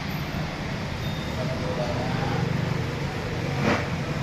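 Steady low background rumble with faint voices, and one sharp click about three and a half seconds in.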